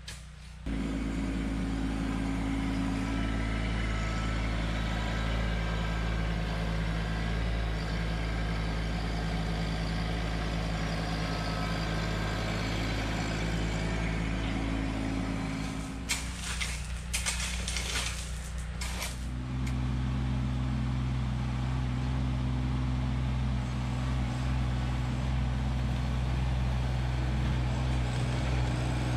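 Kubota LX2610 compact tractor's three-cylinder diesel engine running steadily while it works its front loader with gravel. About two-thirds of the way through, a few seconds of clatter break in, and then the engine note comes back slightly changed.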